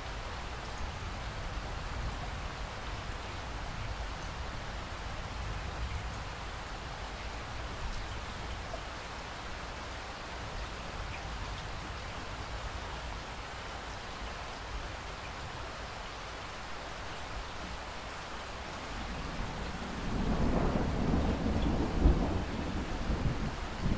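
Steady rain falling, with a deep rumble of thunder rolling in near the end and swelling louder.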